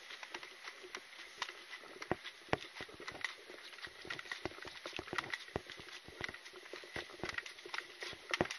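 Footsteps and the knocking and rattling of carried gear jostling as a person walks, close to the microphone: irregular sharp clicks, several a second.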